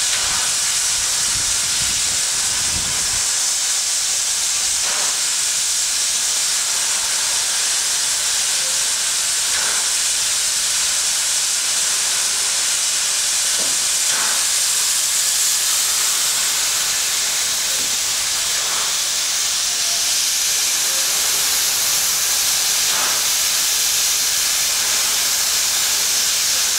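Steady hiss of steam escaping from the stationary NSWGR class 38 Pacific steam locomotive 3801, with a faint soft pulse about every four to five seconds.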